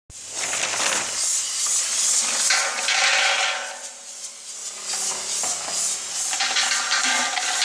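Green plastic bottle caps rattling and rubbing as they tumble around the stainless-steel bowl of a rotary cap dispenser, over a steady low hum.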